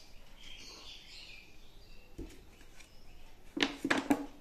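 Small birds chirping faintly in the background, then a quick run of sharp clicks and knocks near the end, from handling things on the kitchen table.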